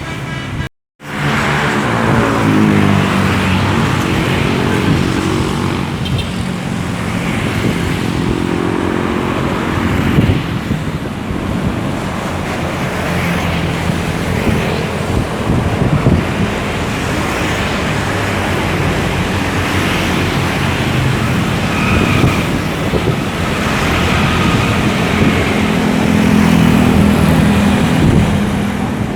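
Intercity buses driving past in convoy: engines pulling up through the gears, their pitch rising again and again, over steady road traffic noise. The sound drops out completely for a moment about a second in.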